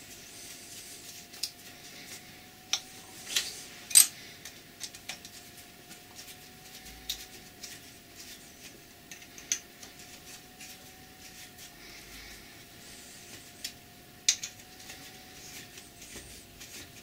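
A steel hex key clicking and scraping in the socket-head cap screws as the bed wiper retaining plate is tightened back onto a Colchester lathe saddle. Scattered sharp metallic clicks, the loudest about four seconds in and again near the end, over a faint steady hum.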